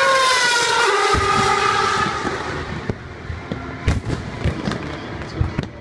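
A 2013 Formula 1 car's 2.4-litre V8 passing at high revs, its pitch falling as it goes by and fading over the first two and a half seconds. After that comes a scatter of sharp pops and cracks.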